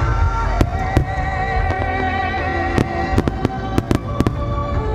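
Aerial fireworks shells bursting with sharp bangs and crackles, scattered at first and then in a rapid cluster a few seconds in, over loud music set to the display.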